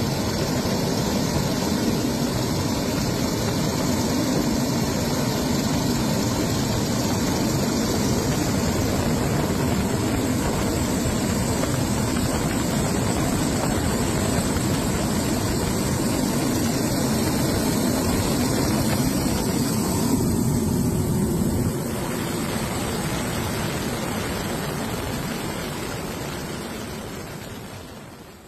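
Steady engine and rotor noise of a helicopter. It drops a little about 22 seconds in, then fades out at the end.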